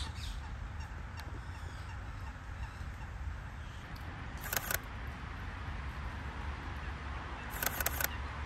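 Camera shutter firing: a quick double click about halfway through, then a fast run of about four clicks near the end, over a steady low outdoor rumble.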